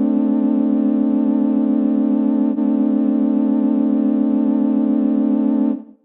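A sustained electronic, organ-like tone on one low note with a steadily wavering pitch, cutting off abruptly near the end.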